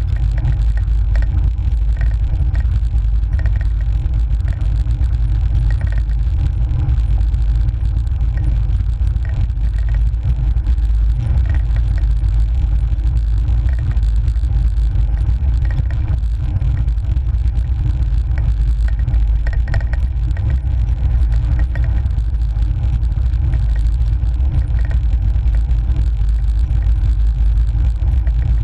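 Wind rush and road rumble from a cyclocross bike being ridden, picked up by a GoPro on a handlebar mount: a loud, steady low rumble.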